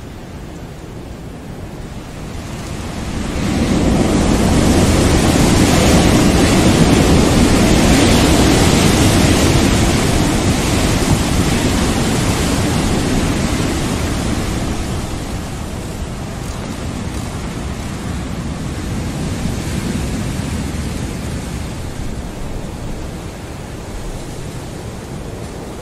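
Steady rushing noise, like surf, that swells up over a couple of seconds, holds, and slowly ebbs away; a smaller swell rises and falls near the end.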